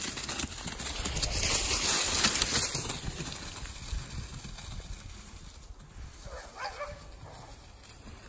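Dogs running through dry fallen leaves: a crackling rustle of paws in the leaves that swells as a small dog runs up close, is loudest about two seconds in, then fades as they move off. A short high-pitched cry comes a little after six seconds.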